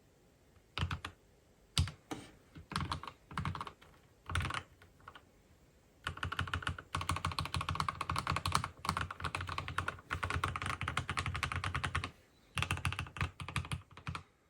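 Typing on a Keychron K8 Pro mechanical keyboard fitted with hybrid Gateron 'Pearly White' linear switches (North Pole V2 top housings on Gateron Pro Red bottoms). A few short runs of keystrokes lead into about six seconds of fast continuous typing, then a pause and one last brief flurry.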